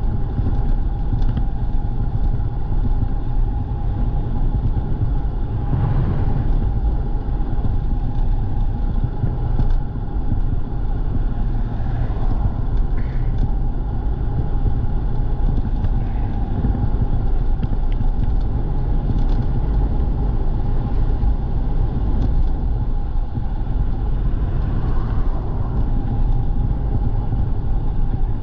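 Electric bike riding along: a steady motor whine over constant wind and road rumble on the microphone.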